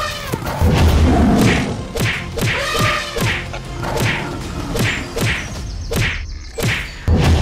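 Cartoon fight sound effects: a steady run of whooshing swings and whacking hits, about two a second, with heavy thuds about half a second in and again near the end.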